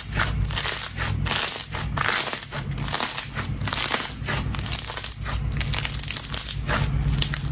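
Slime being squeezed and kneaded by hand with a steady crunching, crackling sound.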